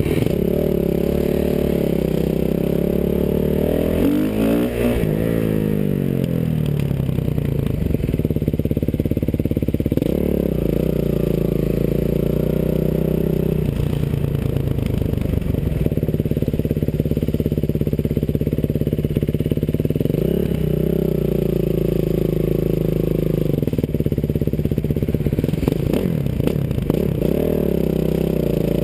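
Dirt bike engine heard from the rider's helmet while riding, its pitch rising and dropping several times with throttle and gear changes.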